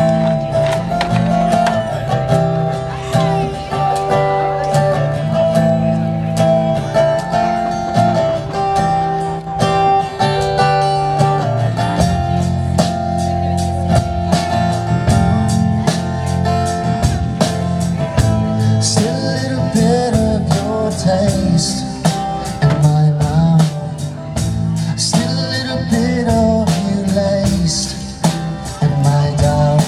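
A band playing a guitar-led song with bass. Drums come in with a steady beat about twelve seconds in, and a singing voice joins later.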